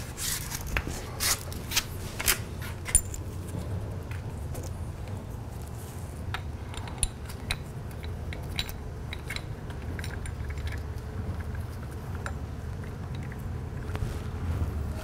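Light metallic clicks and clinks of a Tokico motorcycle brake caliper and its brake pads being handled and fitted by hand, sharpest over the first few seconds and then sparser, over a low steady hum.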